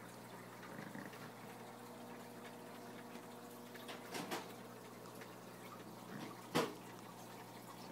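Aquarium filter or pump running: a steady faint electrical hum over quiet water bubbling. A brief sudden knock comes about four seconds in, and a louder, sharper one about two seconds later.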